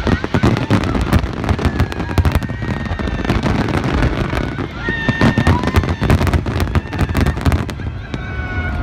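Fireworks display: a dense, rapid barrage of bangs and crackles that thins out near the end.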